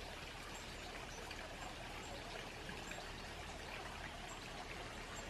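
A small woodland brook running, a soft steady babble of water.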